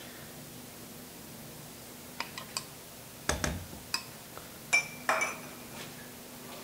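Metal spoon clinking and knocking against dishes while squash purée is being spooned out: a scattered run of short clinks over about three seconds, one duller knock among them, and the loudest clinks ringing briefly.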